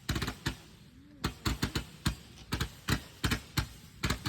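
A burning firework crackling: a run of sharp, irregular pops, a few a second and sometimes in quick clusters.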